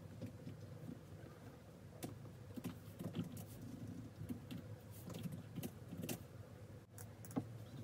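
Keystrokes on the ASUS ROG Zephyrus G14 laptop's keyboard, faint and irregular, a few taps a second, as code is typed.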